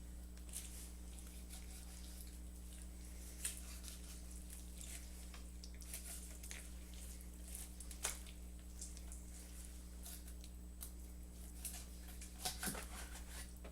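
Raw chicken being cut apart at the wing joint: faint, scattered wet squishing and small clicks, a dozen or so at uneven intervals, over a steady low electrical hum.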